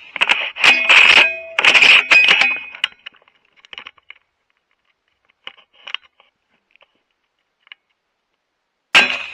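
A quick run of loud, sharp metallic clicks and clinks with a ringing tone, then a few faint ticks, and more sharp clicks start near the end.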